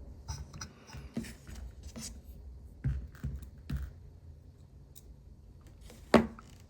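Small tools and parts handled on a watchmaker's bench: light scrapes and clicks, a few soft bumps around the middle, and one sharp tap near the end.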